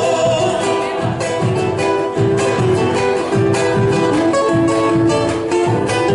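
Folk song instrumental passage between sung lines: plucked guitars playing over a regular low beat.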